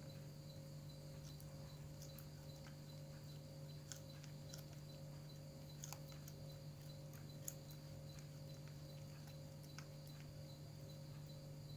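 Faint, irregular clicks of a cat chewing raw long bean, over a steady low hum.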